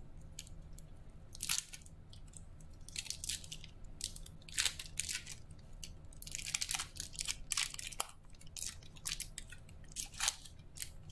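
Foil wrapper of a basketball trading-card pack crinkling and tearing as it is opened by hand, in irregular crackly bursts with several louder rustles.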